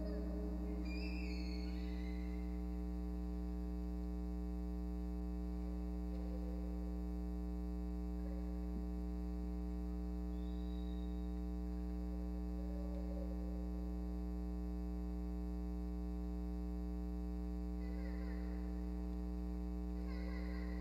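Steady electrical mains hum with a stack of evenly spaced overtones. The last notes of a piano die away at the very start.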